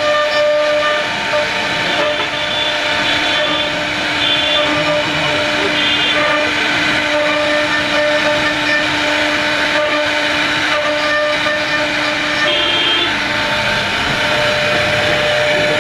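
CNC router spindle running steadily with a held whine of several steady tones over a cutting hiss as it carves wood, the tone shifting slightly about three-quarters of the way through.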